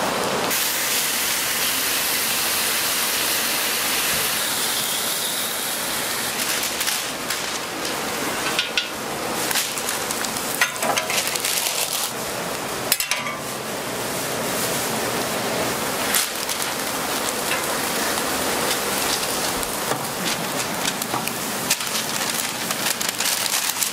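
Steady sizzling hiss of hot oil frying food, with a few light clicks and clinks.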